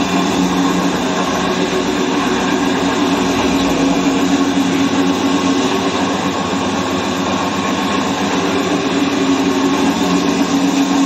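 Electric flour mill (atta chakki) running: a loud, steady machine hum with an even rushing grinding noise over it.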